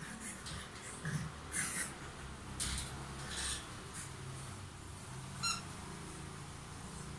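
A French bulldog stirring and rolling in its cushioned crate bed: a few short scuffling sounds in the first few seconds, then a brief quick rattle about five and a half seconds in.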